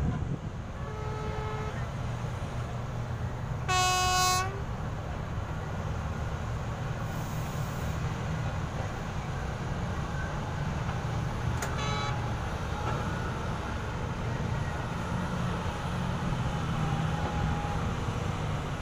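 Vehicle horn honking at a mine site: a faint short honk about a second in, a loud honk of under a second near four seconds in, and a brief one near twelve seconds. Underneath is a steady low engine rumble.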